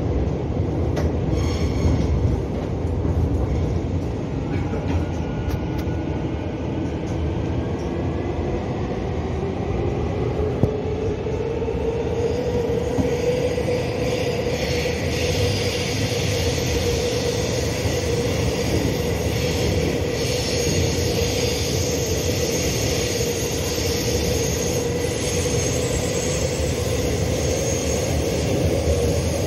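Electric subway train running through a tunnel, heard from inside the car: a steady rumble of wheels on rail, with a whine that rises in pitch over the first half and then holds steady as the train gathers speed.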